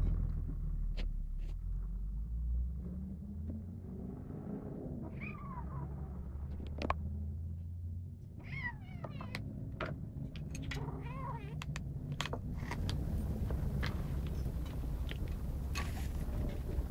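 A kitten growling low and steadily while guarding its food, with a few short, higher-pitched cries breaking in and scattered clicks.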